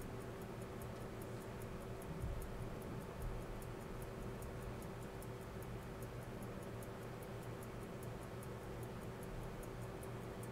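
An 1894 Waltham Model 1884 seven-jewel pocket watch ticking on a timegrapher, a fast even tick beating 18,000 times an hour, over a steady low hum. The balance is swinging with an amplitude that the repairer suspects is really low.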